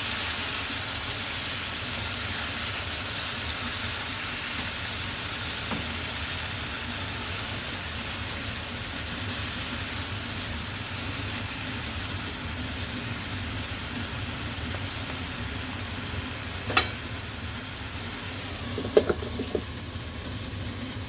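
Food sizzling in a frying pan: a steady hiss that thins a little toward the end. Late on there is one sharp knock, then a short run of clicks and knocks near the end.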